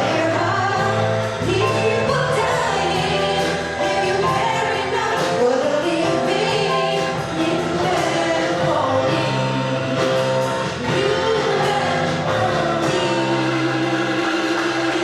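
A group singing a song together over instrumental accompaniment that holds long sustained notes.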